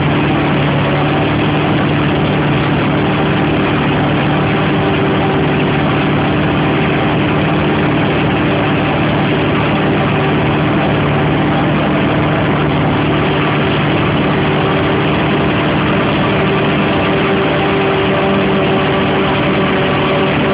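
A heavy farm diesel engine running steadily at constant speed, close by, with a low even hum and no change in pace.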